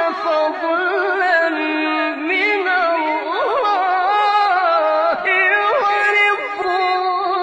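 A solo voice singing a drawn-out, melismatic melody in Middle Eastern style, with long held notes that bend and waver in ornamented glides.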